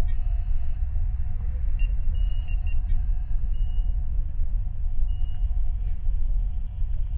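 Star Trek-style starship bridge ambience: a deep, steady rumble of the ship's hum, with a few short high electronic beeps over it, mostly between two and three and a half seconds in and once more about five seconds in.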